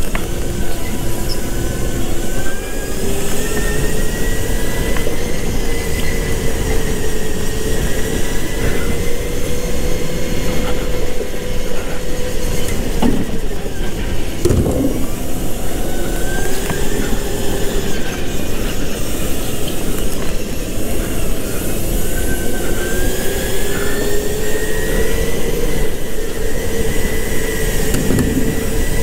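A rental go-kart running at speed, its motor giving a steady whine that rises and falls in pitch as it speeds up and slows for corners, over a rushing noise. About halfway through the pitch dips sharply twice in quick succession.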